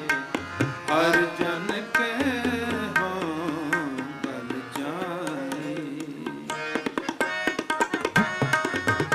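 Instrumental Gurbani kirtan music: tabla playing beneath a sustained melodic line, with the tabla strokes growing quicker and denser over the last couple of seconds.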